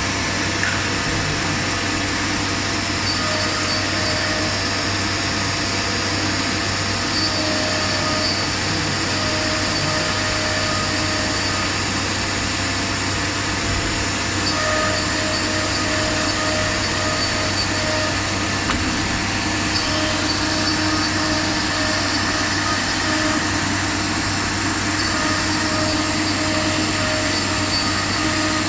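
STD-1325 ATC CNC router running: a steady machine drone with a mid-pitched tone that pulses on and off in runs.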